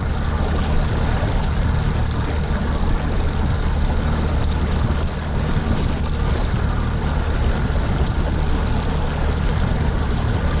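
Outboard motor running steadily as a low, even drone, with water rushing in the boat's wake.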